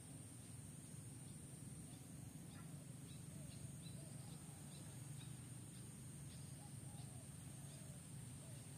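Faint outdoor background: a steady low hum and a steady high hiss, with a series of faint, quick bird chirps from about two and a half to seven seconds in.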